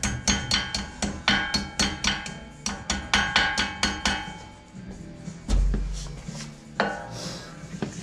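Rapid metal tapping on the front brake caliper of a Mercedes ML430, about four or five strikes a second, stopping about four seconds in. A single heavy thump follows, then a few more knocks near the end.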